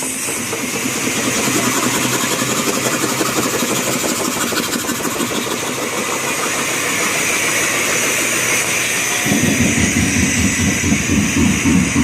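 Roberts air compressor running: a steady mechanical whirr with hiss, and about nine seconds in a low rhythmic pulsing of its strokes starts up again. The compressor is set to free-cycle for half of its pump time, which fits this change between lighter running and pumping.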